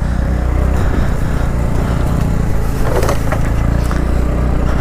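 Motor scooter engine running steadily as the scooter pulls away slowly over a rough dirt trail, a low hum with a short rattle about three seconds in.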